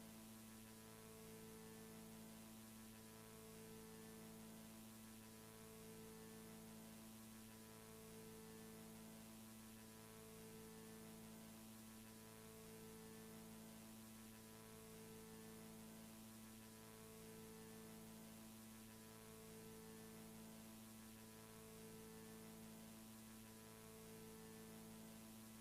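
Faint low electronic drone: a steady hum under two low tones that take turns, each lasting about a second, in an even repeating cycle.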